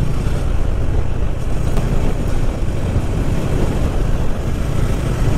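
Motorcycle engine running steadily at cruising speed, with wind and road noise rushing past.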